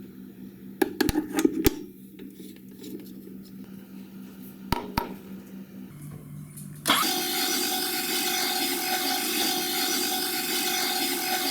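A few clicks and knocks of handling, then, about seven seconds in, an electric meat grinder's motor switched on and running steadily with a whirring hum.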